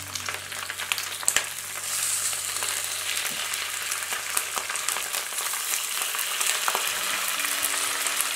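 Salmon fillets frying skin side down in hot oil in a non-stick pan: a steady sizzle that grows louder about two seconds in as more fillets are laid in, with a few light clicks early on.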